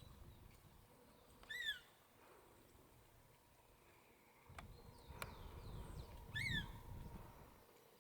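Variable oriole (encontro) giving two short, falling calls about five seconds apart, with a few fainter calls between them. A low rumble runs under the second half.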